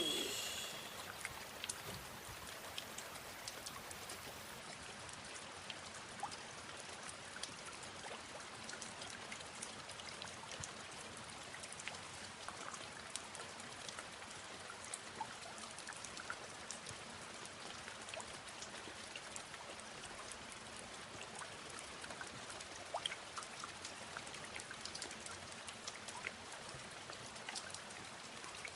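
Steady rain falling, a continuous hiss with many small drop ticks.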